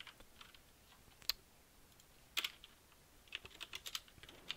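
Computer keyboard being typed on, faint key clicks. There are a couple of isolated keystrokes, then a quick run of them near the end.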